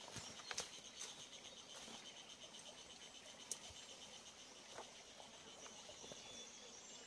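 Faint, steady chirring of insects: a fine, rapidly pulsing high trill. A few light clicks and rustles, from grass and dry stalks as a person crawls into a grass-covered hole, come in the first second and again about three and a half seconds in.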